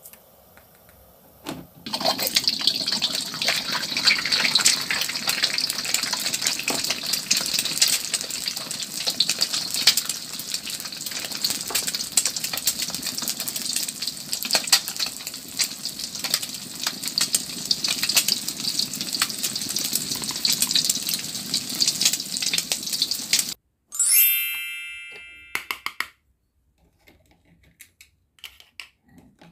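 Frying sizzle for play-food in a toy frying pan on a toy stove: a steady hiss full of small crackles that starts about two seconds in and cuts off suddenly near the end. A brief ringing tone dies away after it, followed by a few light plastic clicks.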